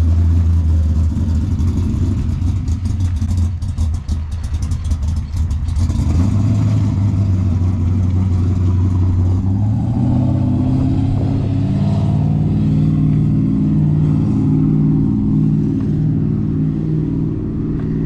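383 stroker V8 engine running. It holds a steady low note for the first half, then its pitch shifts up and down as the revs change over the second half.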